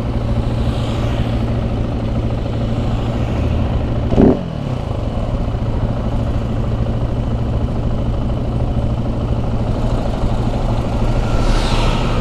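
Engines idling in stopped city traffic, a steady low drone. About four seconds in there is a short loud rev that drops away quickly, and near the end a passing vehicle sweeps by.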